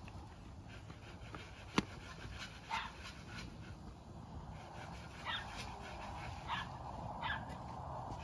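A dog whimpering in four short, high, rising yelps, spread through the middle and later part, over a faint steady background. A single sharp click comes just before the first yelp.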